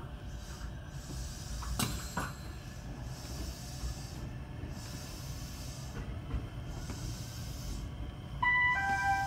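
Electric train moving slowly, heard from inside the car: a steady low rumble with a faint hiss that swells and fades, and a sharp click about two seconds in. Near the end a louder two-note electronic chime falls in pitch, the chime that comes before an onboard announcement.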